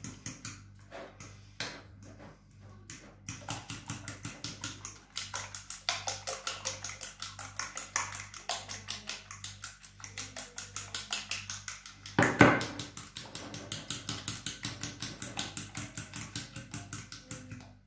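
Fork beating eggs in a ceramic plate, clicking against the plate in a fast, even rhythm of about four to five strokes a second, with one louder knock about twelve seconds in.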